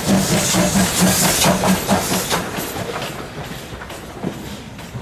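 Train wheels of slow-moving passenger coaches clicking rhythmically over rail joints and points, with a low rumble. The clatter fades steadily.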